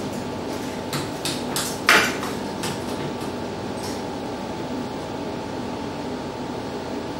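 Metal clicks and clanks of an embroidery cap frame being handled on its hooping station, about eight knocks in the first four seconds with the loudest about two seconds in, over a steady hum.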